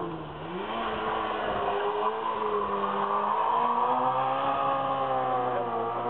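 Hill-climb race car engine at high revs, its note dropping in pitch twice, just after the start and near the end, and climbing in between, loudest around the middle.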